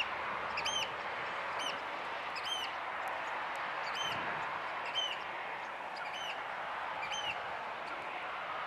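A bird calling a short, clear note that rises and falls, repeated about once a second over a steady background noise.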